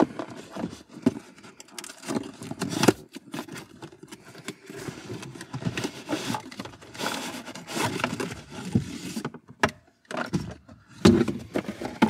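Cardboard product box being opened and handled, its contents slid out: irregular scraping, rustling and clicking.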